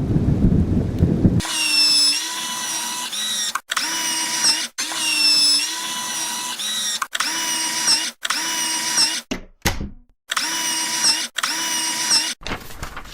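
A power-drill sound effect whining in repeated bursts of about a second each, stopping and starting again some eight or nine times. A low rumbling noise comes before it, about a second and a half in.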